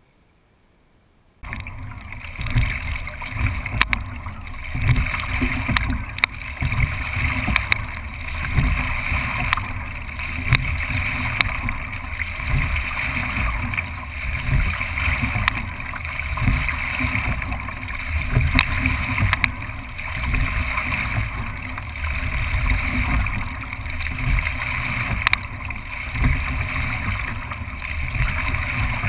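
Racing single scull under way: a steady rush of water and wind along the hull, with a sharp click from the oars about every two seconds, once per stroke. It starts suddenly about a second and a half in.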